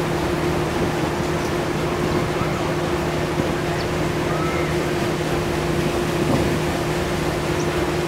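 Paddle boat's engine running steadily, an even low hum with a rushing wash of noise beneath it.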